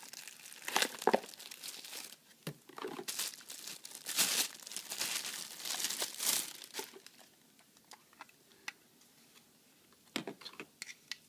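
Plastic wrapping crinkling and rustling as it is handled, then a few light, scattered clicks of small plastic parts in the last few seconds.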